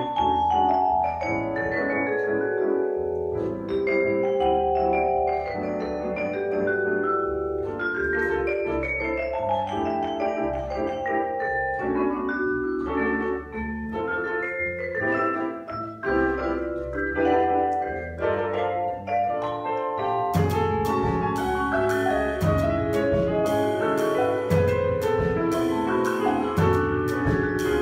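Solo vibraphone playing a melodic concerto line with sustained, ringing notes over a double bass line; about three-quarters of the way through, drum-kit cymbals join in with a steady rhythm.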